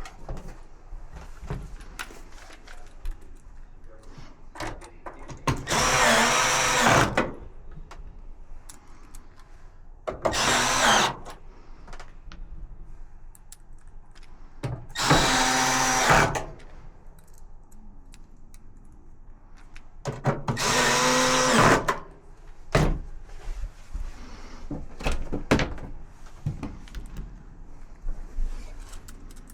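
Power drill driving screws in four short runs of about a second each, its motor whining, with clicks and knocks of parts and tools being handled in between.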